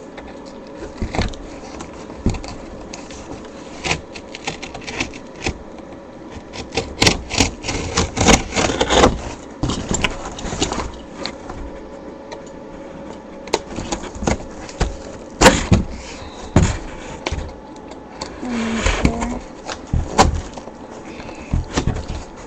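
Irregular knocks, taps and scraping as pieces of cardboard are handled and shifted, busiest a few seconds in, with one sharper knock past the middle.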